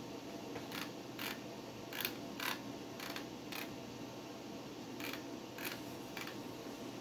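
Old desktop PC running with a steady fan hum, over which about nine short scratchy clicks come at irregular intervals, typical of its hard drive seeking while the operating system installs devices.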